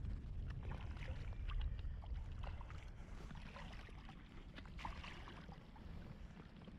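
Small splashes and clicks of creek water over a low rumble of wind on the microphone; the rumble eases off toward the end.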